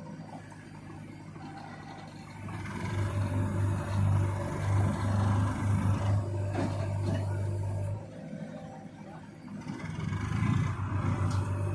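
Heavy diesel engine of a backhoe loader or tractor running. It revs up about two and a half seconds in, eases back to idle near eight seconds, and revs up again near the end.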